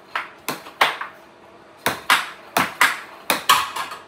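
Air hockey rally: the plastic puck clacking sharply against the mallets and table in a quick, irregular run of about ten hits, with a short lull about a second in.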